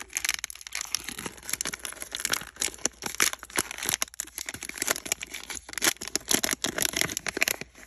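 Wrapper of a Panini Prizm basketball card value pack being crinkled and torn open by hand: a steady run of irregular crackles and rustles.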